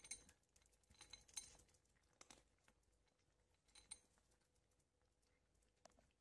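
Faint, scattered clicks and crunches of a cat eating from a bowl, coming in small clusters about a second apart.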